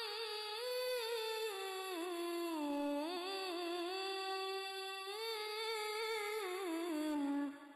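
A young boy reciting the Quran in melodic tilawah style into a microphone: one long, high sustained phrase with ornamented turns, sinking in pitch toward the end and breaking off just before the end.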